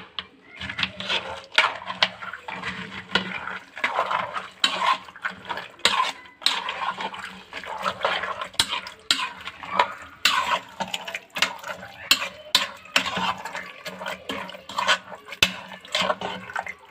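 Metal spoon stirring soaked white beans, grated tomato and spices in an aluminium pot. The spoon scrapes and clinks against the pot in quick, irregular strokes, with the wet sound of the thick mixture.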